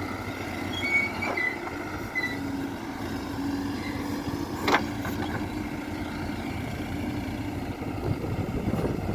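Diesel engine of heavy machinery running steadily, with a few brief high squeaks early on and a single sharp knock about halfway through.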